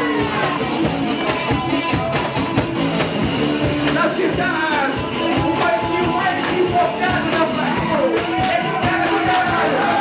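Live rock band playing, with drums striking steadily under a lead melody that slides up and down in pitch.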